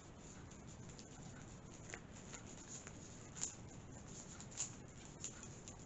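Faint scratching of a pen writing a label on a diamond-painting kit's packet, with a few light ticks of handling.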